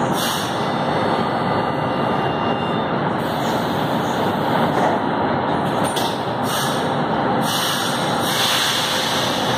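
A metro train standing at an underground station platform, with a steady even rumble and noise, broken by several short bursts of air hiss. Its doors close partway through.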